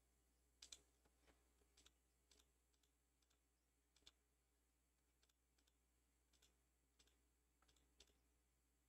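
Near silence, broken by scattered faint computer mouse clicks.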